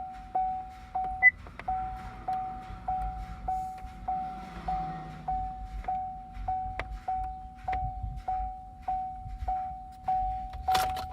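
Chevrolet Silverado's dashboard warning chime repeating evenly, about one and a half chimes a second. Near the end the truck's 4.3-litre V6 starts cranking.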